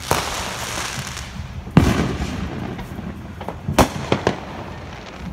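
Consumer fireworks going off: a sudden hissing burst that fades over about a second, a loud bang just under two seconds in with a rumble trailing after it, then a quick cluster of sharp cracks near four seconds.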